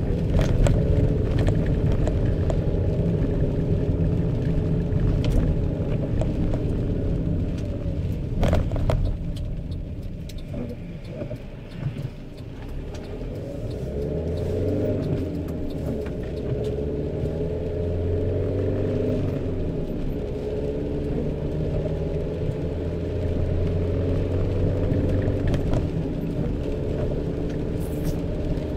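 Engine and road rumble inside the cab of a moving Fiat Scudo van. The rumble eases for a couple of seconds near the middle, then builds again with the engine note rising and falling.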